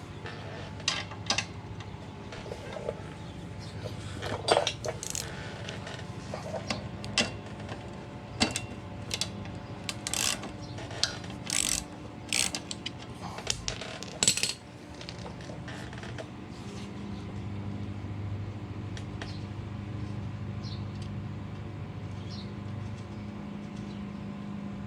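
Metal hand tools clicking and clinking in irregular strikes as the front drum brake adjustment is loosened, because the brake is sticking. The clicks thin out after about 15 seconds, and a steady low hum runs underneath.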